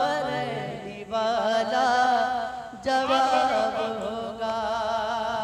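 A man singing a naat line, drawing out long, wavering melismatic notes with no clear words.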